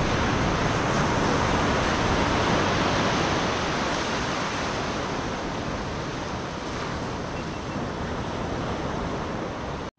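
Surf breaking and washing up a sandy beach: a steady rush of noise, loudest at the start and slowly easing off, with a brief cut just before the end.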